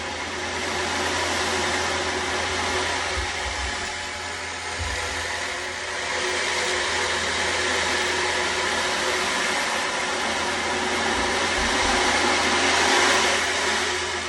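Ocean drum: beads rolling over the drumhead in a steady surf-like wash that swells and eases, loudest near the end before it fades. Under it, a sound bowl's steady ringing tones and a few low thuds.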